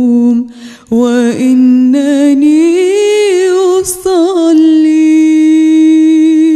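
Solo female voice singing Arabic song into a handheld microphone, unaccompanied. An ornamented phrase with vibrato breaks briefly about half a second in, rises in a run near the middle, and closes on one long held note.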